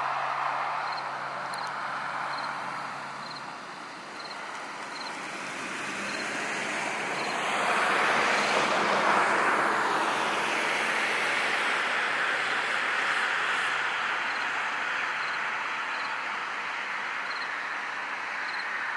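A car passing on a road, its tyre and engine noise swelling about eight seconds in and then slowly fading. Crickets chirp in an even rhythm throughout.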